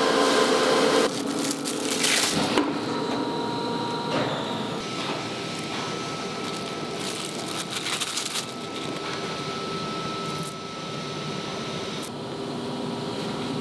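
Plastic film crinkling and rustling as hands handle and lay down plastic-wrapped strips of raw silicone rubber, over a steady factory machine drone. A louder machine hum with several steady tones stops about a second in.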